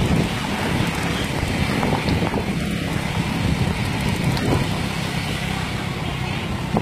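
Motor scooter engine running steadily while riding, with road noise.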